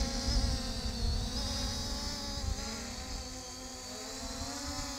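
MJX Bugs B5W quadcopter's brushless motors and propellers buzzing in flight: a steady multi-tone whine that wavers slightly in pitch as the drone holds and adjusts its position.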